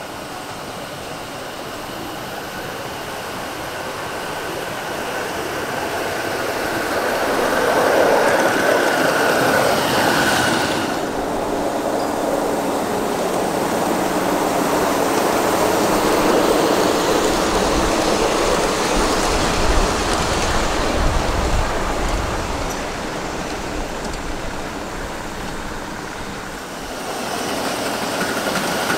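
Ride-on miniature railway trains rolling past on the track, their steel wheels running on the rails. The sound builds over the first few seconds, with a faint high whine in the first third and again near the end. A deeper rumble comes about two-thirds through as a train rolls by.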